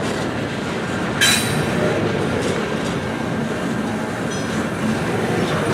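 Freight cars rolling past on the rails in a steady rumble of wheels, with a brief high wheel squeal about a second in.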